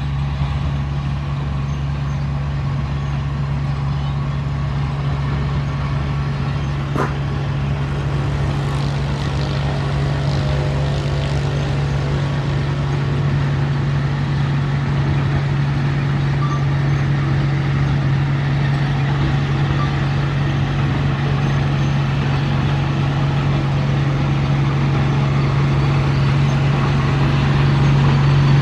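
Diesel engine of a Komatsu D31P crawler bulldozer running steadily, with one sharp clank about seven seconds in. It grows slightly louder near the end.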